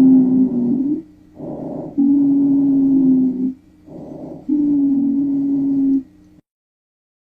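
Auscultated breath sounds with a low-pitched wheeze over three breaths. Each breath is a short soft part followed by a longer, louder part carrying one steady musical tone, the sign of narrowed airways.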